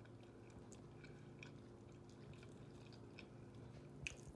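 Faint chewing: soft mouth clicks and smacks of someone eating a bite of baked chicken and dressing, over a low steady room hum, with a slightly louder click near the end.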